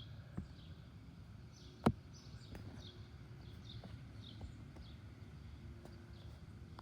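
Faint bird chirping: short high chirps repeated about every half second, with a sharp click about two seconds in.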